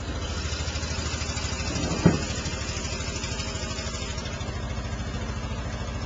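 Utility-body pickup truck's engine running steadily, with one short knock about two seconds in.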